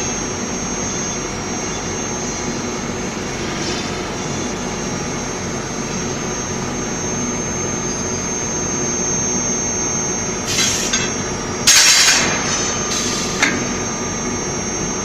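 Steady hum of running industrial machinery with a thin high whine throughout, broken by a few short, loud, sharp noises about ten to thirteen seconds in.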